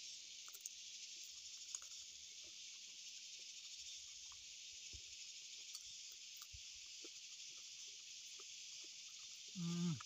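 Steady high-pitched drone of an insect chorus, with faint scattered clicks and smacks of chewing and eating by hand; a short voiced sound, a hum or word, just before the end.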